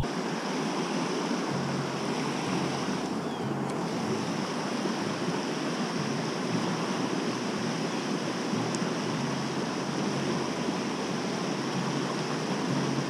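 Steady rushing of a fast stream running over riffles.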